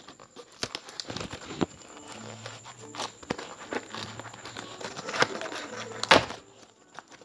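Cardboard box and packaging being handled and opened by hand: irregular clicks, scrapes and rustles, with one louder rustle about six seconds in.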